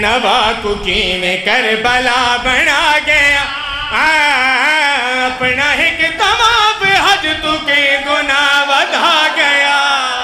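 A boy and several men chanting a noha, a Shia lament, together at a microphone, the voices sustained and wavering in pitch.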